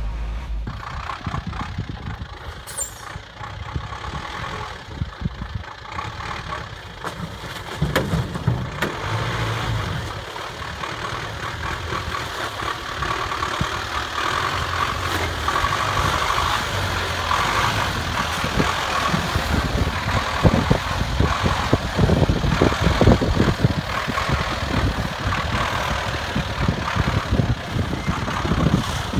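GAZ-66 truck's engine running as the truck drives over rough ground, getting louder in the second half, with many short knocks in the last third.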